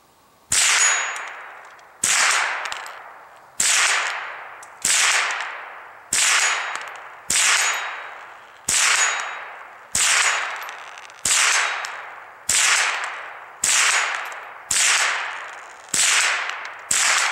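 Marlin Model 60 .22 LR semi-automatic rifle firing fourteen shots at a steady pace, about one every 1.2 seconds. Each round strikes a steel gong, which rings and fades before the next shot. The rifle cycles every round without a stoppage.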